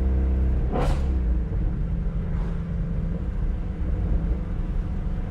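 Ford Shelby GT350R's 5.2-litre flat-plane-crank V8 running steadily, with a single sharp exhaust pop just under a second in. The engine then drops to a lower, rougher rumble with a fainter pop a little later: exhaust crackle on overrun as the throttle closes.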